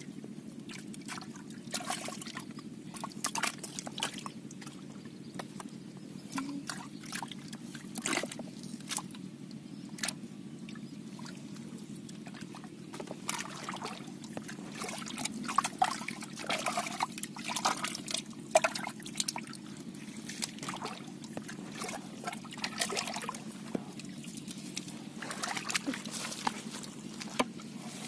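Hands splashing and squelching in a shallow hole of muddy water, groping for catfish: irregular short wet slaps and sloshes, busier in the second half.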